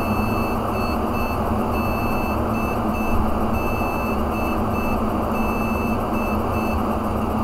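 ASUS motherboard's POST buzzer beeping a repeating code of one long beep followed by two short ones, about every two seconds. It is the beep code for no memory installed, the sign that the freshly reflashed BIOS now runs and detects the processor.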